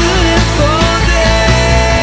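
Rock music soundtrack, with a long held note starting about half a second in.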